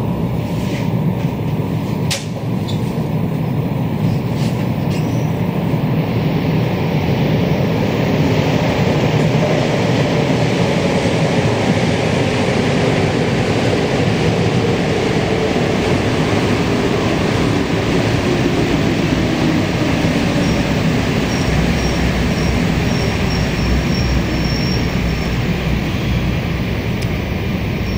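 Rubber-tyred Montreal metro train running through a station, a steady loud rumble and hiss. Over the middle of the stretch, a motor whine falls steadily in pitch as a train slows.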